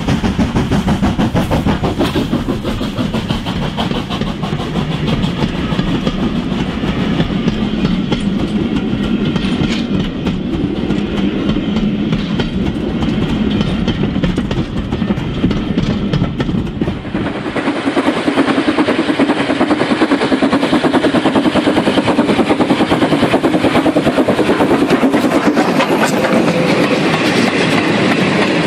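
OO gauge model trains running along the layout track: a continuous rattle of wheels over rail joints with motor hum. About seventeen seconds in, the sound changes to a goods train of wagons rattling past.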